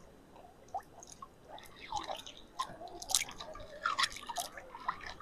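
A hand dipping and moving in shallow, ice-cold stream water over a pebble bed: faint, irregular little splashes and drips, more of them after about a second and a half.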